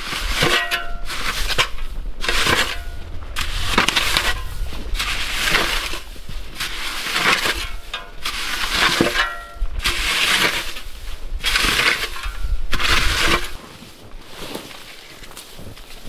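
Metal snow shovel scraping into and scooping packed snow, one stroke about every second and a half, some strokes carrying a short ringing tone; the strokes turn softer near the end.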